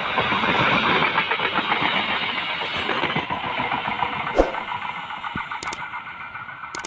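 Passenger train coaches rolling past on the rails, a steady rumble and clatter of wheels on track that fades as the train moves away. A few sharp clicks come near the end.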